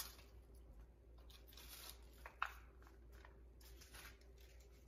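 Faint crunching strokes of cabbage being shredded on a handheld mandoline slicer: a few scattered cuts, the sharpest about halfway through, over near silence.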